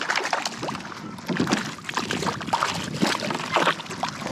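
A hooked bonito thrashing at the surface beside a kayak: an irregular run of splashes and knocks.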